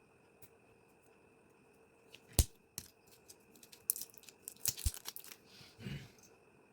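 Packaging being handled and opened: a sharp knock about two and a half seconds in, then a quick run of crisp crinkling and tearing clicks, and a short rustle near the end.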